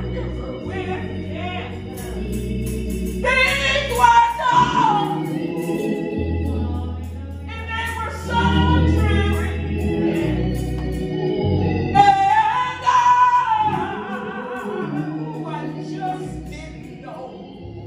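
Live gospel music from a small band: organ and bass guitar with singing over them.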